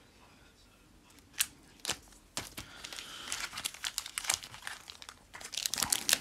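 Foil Pokémon booster pack wrappers crinkling as a pile of packs is handled. A couple of sharp crackles come about one and a half and two seconds in, then steady crinkling that grows louder near the end.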